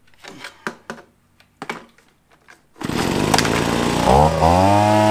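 Plastic clicks and knocks as the blower tube is handled. About three seconds in, the Wild Badger 26cc two-stroke leaf blower engine comes in loud, then about a second later it is throttled up with a rising whine and held at high revs.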